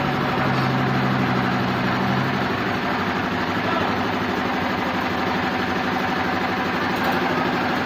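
Sawmill machinery running steadily with a continuous engine-like hum. A second, lower tone drops out about two and a half seconds in.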